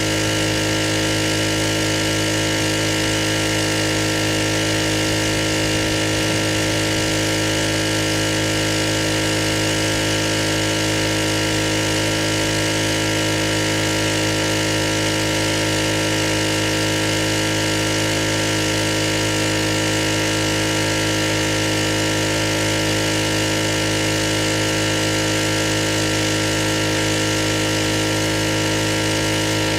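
Pressure washer's engine running steadily at constant speed, with no change in pitch or level.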